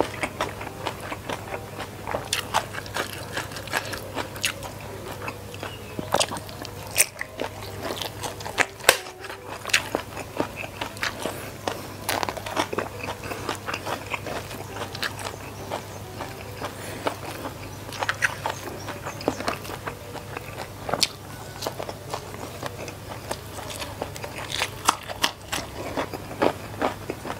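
Close-miked eating by hand: irregular crunching bites and chewing of rice with shrimp in sambal and papaya-leaf urap.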